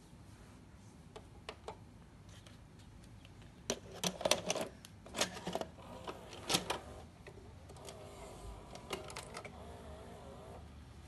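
A VHS cassette clatters and clicks as it is pushed into a Sharp VC-MH72 video recorder and drawn in by the mechanism. Then the tape-loading motor whirs with a wavering pitch for about three seconds as it threads the tape, with a few more clicks.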